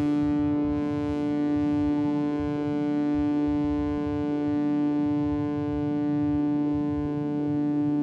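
Elektron Model:Cycles synthesizer playing a sustained drone on one steady pitch rich in overtones. Its volume swells and eases slowly, about every second and a half, and a high hiss fades out in the first second.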